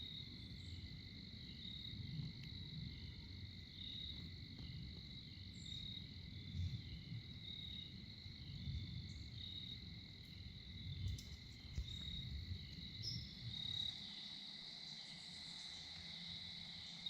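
Insects chirping steadily, a pulse about once a second on a high tone, over a low rumble that drops away about three-quarters of the way through.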